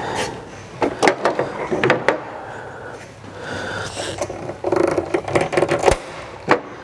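Plastic trim clips and a plastic tailgate panel being pried loose, a series of sharp clicks, creaks and rattles in two bursts, the first about a second in and the second past the middle.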